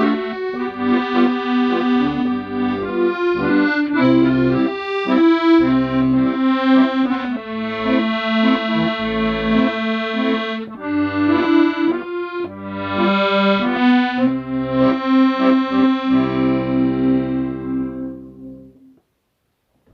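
Accordion playing a slow melody with chords and bass, closing on a long held final chord that fades away near the end.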